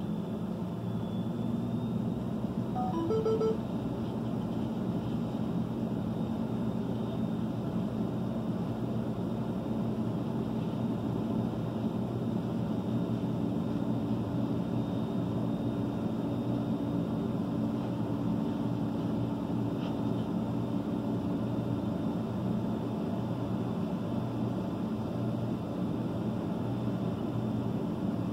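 Steady low hum of idling vehicle engines, heard from inside a parked vehicle, with a brief run of electronic beeps about three seconds in.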